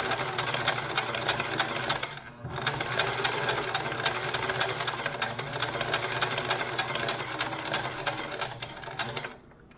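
Electric sewing machine stitching: a motor hum with a fast, even run of needle clicks, pausing briefly about two seconds in, then running on and stopping near the end.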